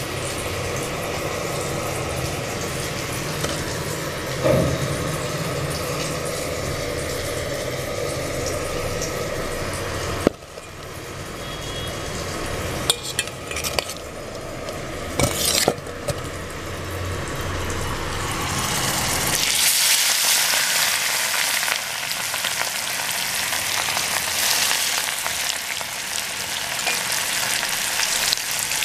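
A steady hiss with a low hum, then a spoon clinking a few times against a bowl of masala-coated prawns. About two-thirds of the way through, this gives way to hot oil sizzling and bubbling in a frying pan, a bright steady hiss.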